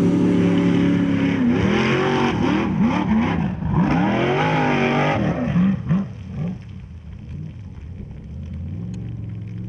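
Engine of a custom-built 700-horsepower Formula Offroad buggy revving hard in repeated rising and falling bursts as it claws up a steep dirt slope, then dropping to a quieter, steadier running note about six seconds in.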